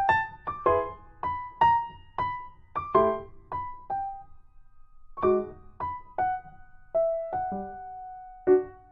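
Background music: a piano-like keyboard melody of single struck notes that ring and fade, with a short pause about four seconds in.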